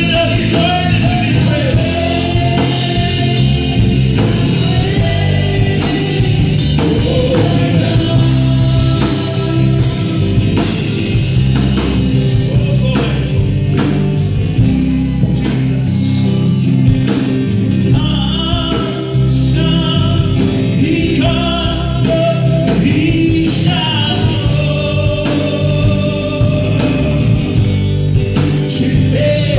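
Live gospel music through a PA system: a man sings lead into a microphone with backing singers, over electric guitars and a steady beat.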